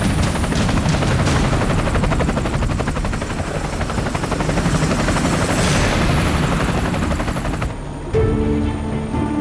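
Helicopter rotor chopping rapidly and steadily, loud and close. It cuts off abruptly near the end, giving way to music with held low tones.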